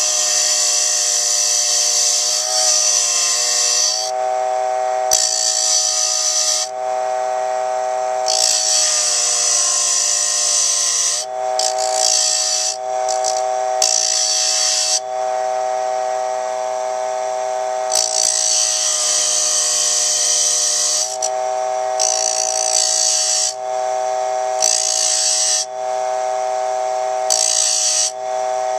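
Dremel Model 700 mini lathe's small motor running with a steady whine while a pointed chisel cuts into a small wooden spindle. The cuts come as repeated loud hissing scrapes of one to three seconds each, and the motor's pitch sags and wavers briefly under a couple of them.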